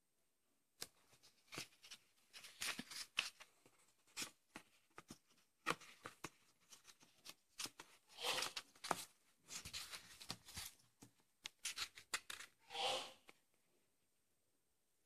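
Pages of a paperback book being flipped and riffled by hand: a run of quick, crisp paper flicks and rustles, with one longer swish of pages near the end.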